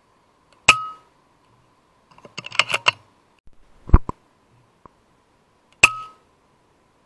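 Two shots from a .22 FX Impact M3 air rifle, each a sharp crack with a brief ringing tail, about five seconds apart. Between them comes a quick run of metallic clicks as the side lever is cycled to load the next pellet, then a heavy double thump.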